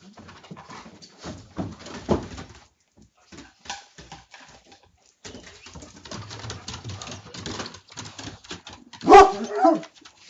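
Dog barking loudly once near the end, after several seconds of softer scattered noises.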